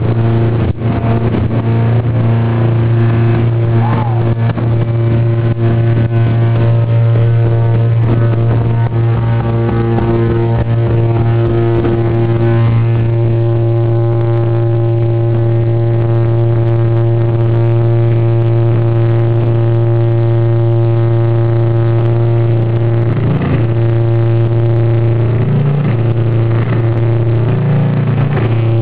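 Heavily distorted electric guitar through loud amplifiers, holding one low droning note with a steady stack of overtones. The drone wavers and bends in pitch a few times near the end.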